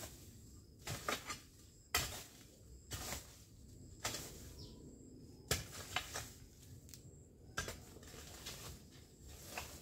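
Leafy garden plants being cleared by hand: irregular crisp rustles and snaps of stems and leaves, roughly one every second, with a faint steady outdoor background.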